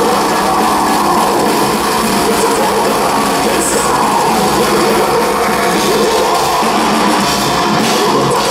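Heavy metal band playing live: distorted electric guitars and a drum kit, loud and dense, heard from within the crowd.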